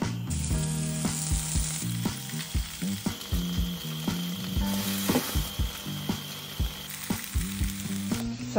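Cubed potatoes and tofu sizzling as they fry in oil in a pan, stirred with a wooden spatula that knocks against the pan now and then, over soft background music.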